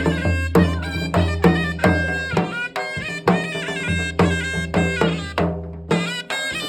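Music with a steady drum beat, about two to three strokes a second, under a melody; the beat breaks off briefly about five and a half seconds in, then picks up again.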